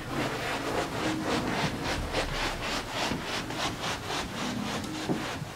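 Two people's socked feet shuffling and scuffing across carpet, a steady rhythmic rubbing of about four strokes a second.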